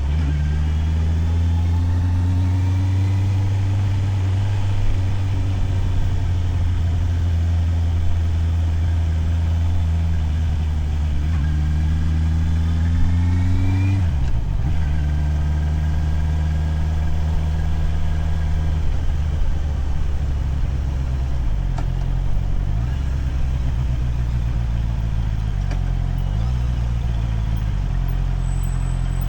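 Motorcycle engine under way. Its pitch climbs slowly through the first half and drops sharply at a gear change about fourteen seconds in, then runs lower with small dips and wavers in engine speed.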